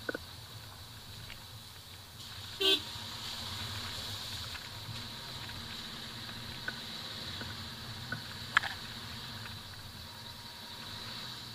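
Maruti Suzuki Vitara Brezza crawling over a rough gravel track, heard from inside the cabin as a steady low engine and tyre hum. A short horn toot sounds about three seconds in, and a single sharp click comes near the end.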